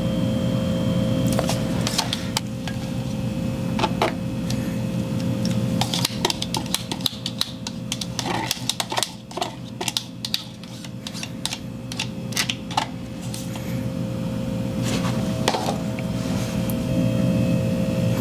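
Instant ramen being eaten close to the microphone: irregular clicks and short wet mouth sounds of chewing and slurping noodles, over a steady low hum.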